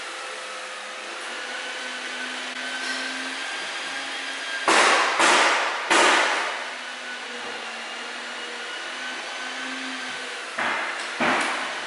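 A filled dust bag and the metal drum, lid and hoses of a dust collector being handled, over a steady background hum. About five seconds in there are three loud, sudden bursts of rustling and clatter, and two more near the end.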